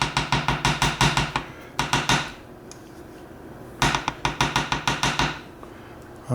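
Rapid runs of small sharp metallic clicks, about nine a second, with a slight ringing pitch, in three bursts: hand tools working on a small metal lock during disassembly.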